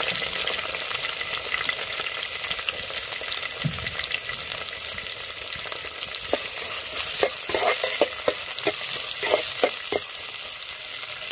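Sliced onions and green chillies sizzling in hot oil with curry leaves, a steady high hiss. From about seven seconds in, a spatula stirs them, with a run of scrapes and knocks against the pan.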